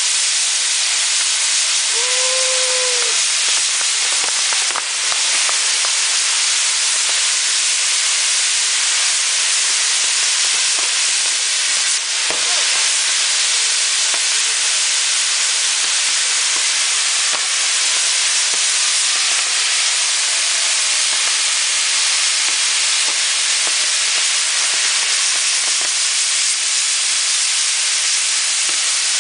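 Maltese firework wheel (ġigġifogu) burning and spinning, its fountain drivers giving a loud, continuous hiss of spraying sparks. A short whistling tone rises and falls about two seconds in.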